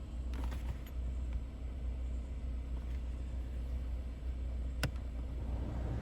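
Steady low hum in a car cabin, with a few light clicks of dashboard climate-control buttons and knob about half a second in and one sharper click near the end.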